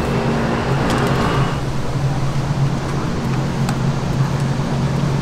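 A steady low mechanical hum over background noise, with a brief rustle of cardboard about a second in and a few light clicks.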